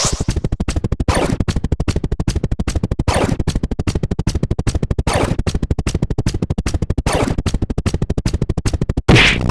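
Electronic counter sound effects: a rapid, even train of sharp clicks, with a falling swoop about every two seconds. About nine seconds in a louder swoop comes, and after it the clicks change character.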